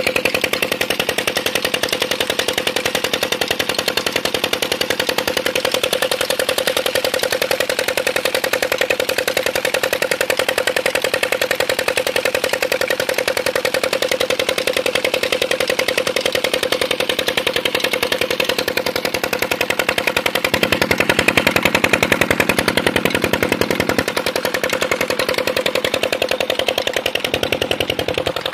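Single-cylinder stationary diesel engine running steadily with a rapid, even exhaust beat, driving a tubewell pump by a flat belt.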